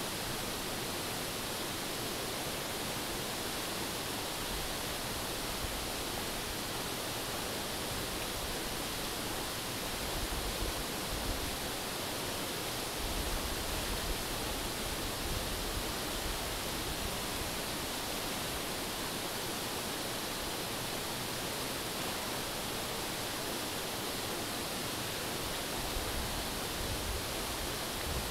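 Mountain river rushing steadily over rocks and shallow rapids, an even hiss of water, with a few brief low rumbles around the middle and near the end.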